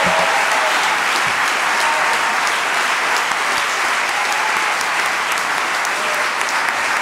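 Large audience applauding steadily, many hands clapping, easing off slightly toward the end.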